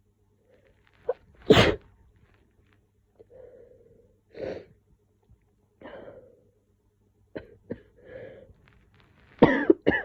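A woman with a head cold sneezing and coughing in fits: one loud sneeze about a second and a half in, softer coughs and sniffs after it, and another loud burst near the end.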